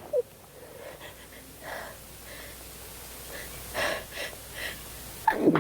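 A girl's gasping in-breaths as another sneeze builds, a few catches of breath spread over several seconds, then a loud sneeze bursts out near the end.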